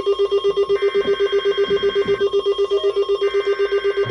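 Emergency Alert System alert tones: a loud electronic tone pulsing rapidly, about ten beeps a second, with two bursts of the alert's digital header data sounding under it, each about a second and a half long.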